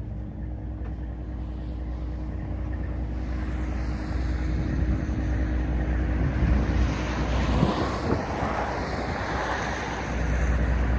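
Heavy truck diesel engine running, with a rushing noise that builds from about three seconds in and is loudest around six to eight seconds in.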